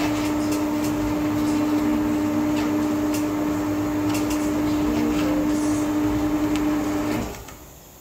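Electric motor of a truck tyre changer running with a steady hum as it turns a clamped truck wheel, with a few faint clicks; the motor stops about seven seconds in.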